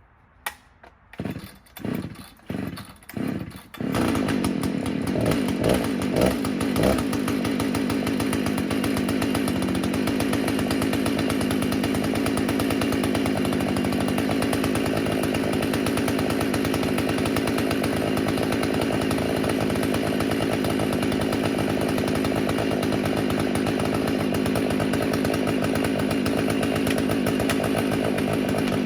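Jonsered 670 two-stroke chainsaw on an Alaskan chainsaw mill: several short sputtering bursts as it is started, then it catches about four seconds in, revs up a few times, and runs steadily at high revs for the rest of the time.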